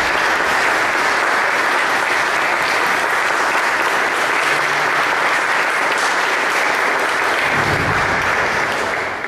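Audience applauding, steady and dense, beginning to die away near the end.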